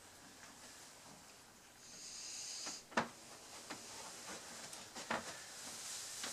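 Hand work on a door hinge: a short hiss about two seconds in, then a sharp knock about three seconds in and a few lighter clicks of tools and hinge parts.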